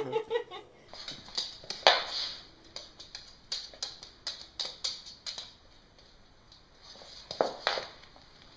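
A small dog and a toddler scrabbling on a hardwood floor: irregular light clicks and taps, thickest in the first half, with two louder taps near the end.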